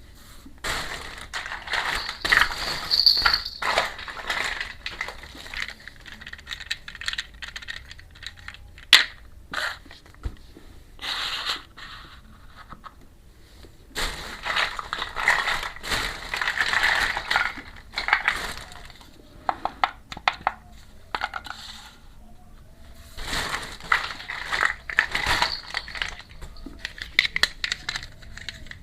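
Handling of a miniature toy kitchen set during unboxing: crinkling packaging and small pieces clicking and clinking. It comes in several bursts of a few seconds, with short quiet pauses between them.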